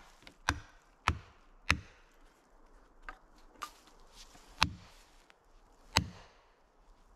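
An axe's poll hammering plastic felling wedges into the back cut of a large white pine, driving them in to tip the tree over. Three quick blows about half a second apart, then four more spaced a second or so apart, the last loudest.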